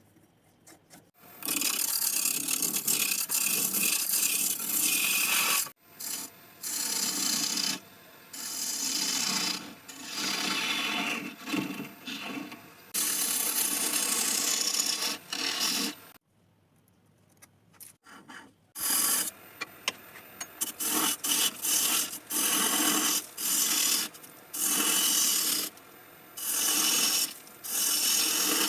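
A hand tool rubbing and rasping against wood in repeated strokes, a long one first, then shorter strokes of about a second each, with a pause of about two seconds past the middle.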